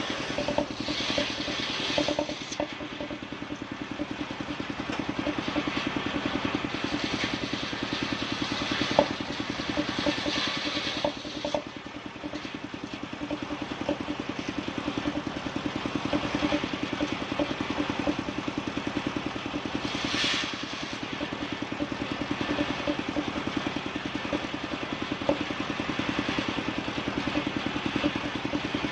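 Engine-driven wood saw running steadily with a fast, even engine pulse while sawing bayur timber. A higher hiss rises over it near the start, around ten seconds in and again around twenty seconds in.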